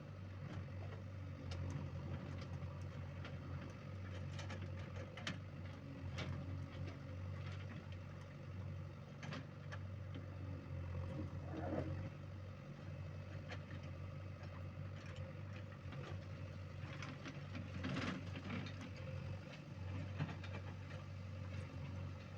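JCB 3DX backhoe loader's diesel engine running steadily, with scattered sharp knocks over it, the loudest about twelve and eighteen seconds in.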